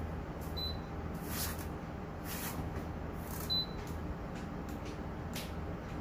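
Rubbing and scraping of a filter being pushed into a Toshiba CAF-Y36PH tower air purifier, with two short high beeps from the purifier about three seconds apart. The beeps signal that it has sensed the filter in place.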